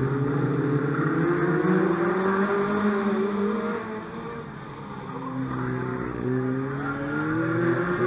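Stock car engines racing around the track, revving up and easing off as the cars pass. The engines fade about four seconds in, then build again.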